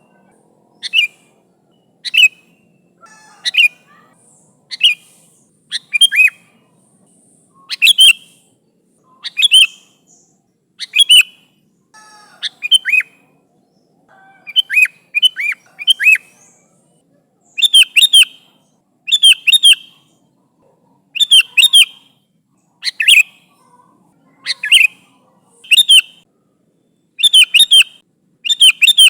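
Sooty-headed bulbul (kutilang) calling over and over in loud, bright short phrases about one every second and a half. In the second half the phrases come as two or three quick notes run together.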